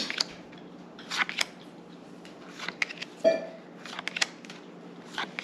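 Pokémon trading cards being handled and flicked through, a string of short papery flicks and snaps, with one sharper, louder snap about three seconds in.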